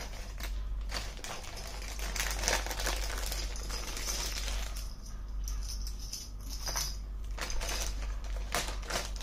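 Clear plastic bag crinkling as it is handled, with small clicks and rattles from the wire leads and connectors inside. The sound comes and goes irregularly, over a steady low hum.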